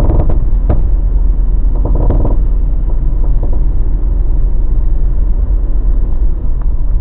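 Mazda BT50 pickup truck on the move: a heavy, steady low rumble, with a few short knocks in the first few seconds.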